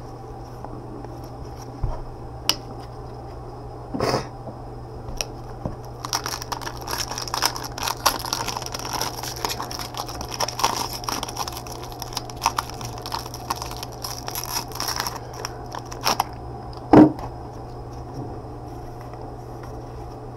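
Crinkling and tearing of a trading-card pack wrapper, a dense run of crackles lasting about ten seconds, with a few scattered clicks before it. One loud knock comes near the end, over a steady low electrical hum.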